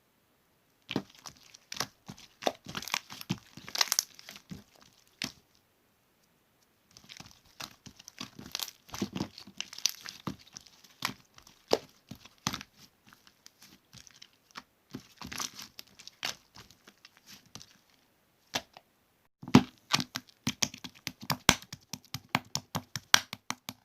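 Slime being squished and pressed by hand, a run of crackling pops and clicks in bursts with short silent pauses between them.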